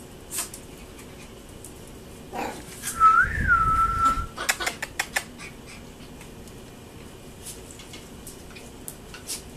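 A Shih Poo puppy giving one thin, high whine, rising and falling briefly and then held for about a second, followed by a quick run of sharp clicks.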